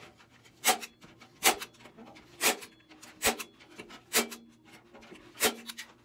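Hand staple gun firing staples through wire hardware cloth into the wooden frame of a beehive quilt box: six sharp snaps about a second apart.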